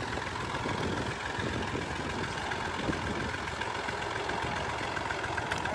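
Combine harvester running steadily: an even mechanical drone of engine and machinery, with a faint steady whine on top.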